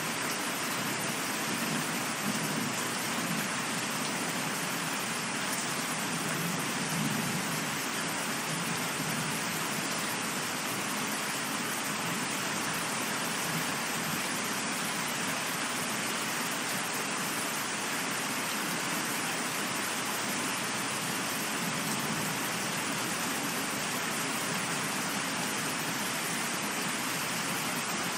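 Steady rain falling, with a low rumble of thunder swelling in the first several seconds.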